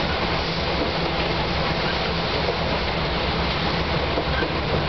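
Steady interior running noise of an Iyo Railway 800-series (ex-Keio 2010-series) electric commuter car under way: an even rush of wheels and body noise with a low hum, mixed with the car's air conditioning.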